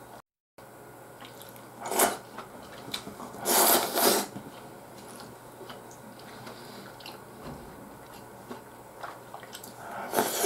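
Ramen noodles slurped from a bowl: a few short noisy slurps, about two seconds in, a longer pair around three and a half to four seconds, and another near the end. Faint small clicks and mouth sounds fill the gaps between.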